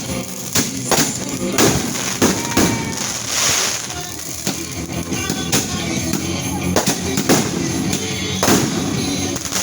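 Consumer fireworks going off: a series of sharp bangs at irregular intervals, with a spell of crackling about three seconds in, over music playing in the background.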